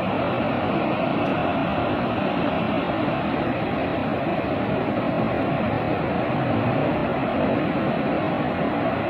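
Steady, unbroken rushing roar of a burning oil-well blowout, with no separate blasts or breaks.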